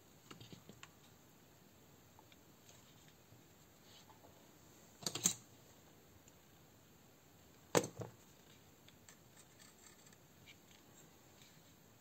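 Hands handling an opened airsoft pistol and small hand tools on a workbench mat: light scattered clicks and rubbing, with a quick run of sharp clicks about five seconds in and one sharper clack just before eight seconds.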